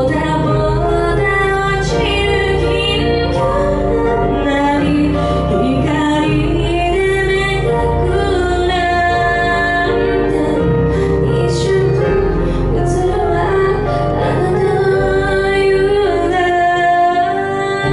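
A woman singing a slow Japanese pop ballad into a handheld microphone, amplified over instrumental accompaniment with sustained bass notes. Her held notes waver with vibrato.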